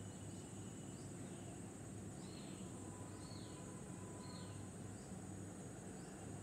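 Outdoor ambience: a steady high insect drone, with a bird giving several short falling calls in the middle, over a low steady hum.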